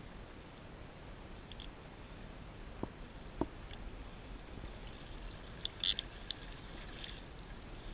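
Faint steady background hiss with two small clicks about three seconds in and a short burst of rustling near six seconds, which is handling noise from an arm and sleeve brushing close to a head-mounted camera.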